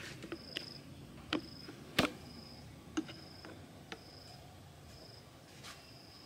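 Scattered sharp clicks and knocks, the loudest about two seconds in, over a high-pitched insect chirp repeating in short pulses about once a second.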